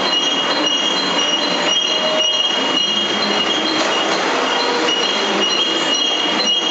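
Industrial degreasing washing line for deep-drawn metal ware running: a steady, even machine noise with a constant high-pitched whine on top.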